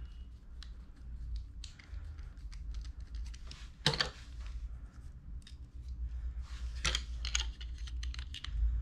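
Irregular small clicks and clatter of a precision screwdriver, its bits and plastic bit case being handled against a plastic phone mount, with two sharper clicks about 4 and 7 seconds in.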